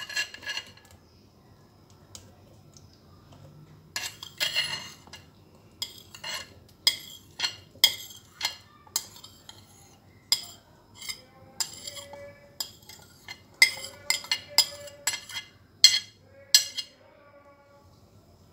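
Irregular sharp clinks and knocks of a glass bowl and dishes while cubed mango is scooped out by hand. They begin about four seconds in, come in quick clusters, and several near the end leave a short ringing tone.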